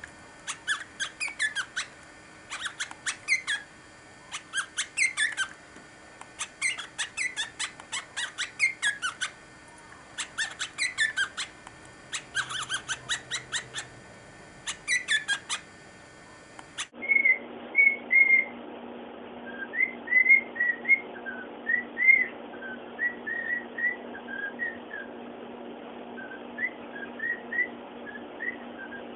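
Cockatiel chirping and whistling in quick clusters of short notes, each cluster about a second long. About 17 seconds in, this gives way to the cockatiel whistling its song in short notes over a steady low hum.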